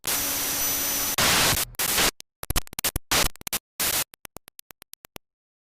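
Electronic static sound effect, as in a logo sting: a loud burst of hiss with a faint steady tone in it, then a glitchy stutter of ever shorter bursts that stops about five seconds in.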